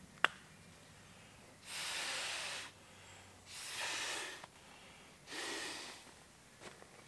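Sleeping mat sliding out of its nylon stuff sack and being handled: three rustling swishes of about a second each, after one sharp click near the start.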